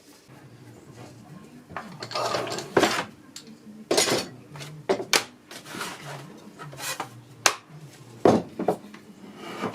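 Irregular clatter of hard objects being handled and set down, with about a dozen sharp knocks and some scraping.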